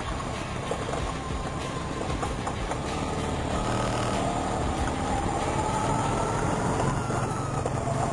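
Vespa scooter running, with a siren-like whine over the engine's rumble; the whine climbs slowly in pitch through the middle of the stretch.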